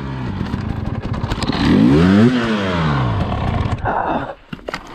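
Dirt bike engine revving up once and falling back while the bike lies down on its side. About four seconds in the engine sound drops away sharply, followed by a few clicks and scrapes.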